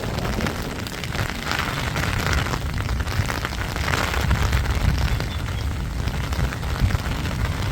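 Heavy downpour: a dense, steady rain hiss with a strong low rumble, the rain pelting close to the microphone.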